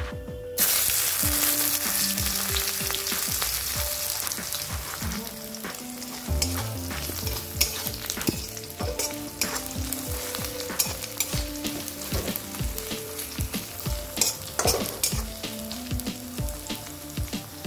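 Sliced onions dropped into hot oil in a metal wok, bursting into a loud sizzle about half a second in and then sizzling steadily. A metal spatula stirs them, clicking and scraping against the wok.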